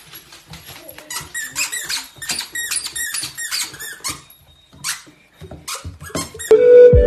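Squeaky plush dog toy squeaking rapidly, several squeaks a second, as a corgi puppy chomps on it while carrying it. Music comes in loudly near the end.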